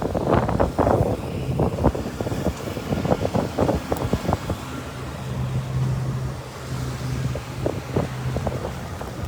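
Gusts of wind buffeting the microphone in a snowstorm, coming in rough irregular blasts that are strongest in the first few seconds. A steady low hum joins in for a few seconds past the middle.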